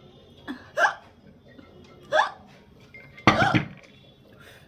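A woman hiccupping, three sharp hiccups a little over a second apart, the third the loudest and longest. The hiccups are brought on by eating hot chillies.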